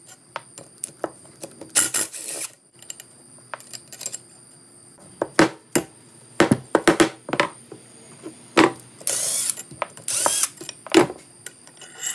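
A cordless power tool running in short half-second spurts as it spins out the 11 mm 12-point bolts of Eagle H-beam connecting-rod caps: once about two seconds in and twice near the end. Sharp metallic clinks and knocks of the socket, bolts and rod cap come in between.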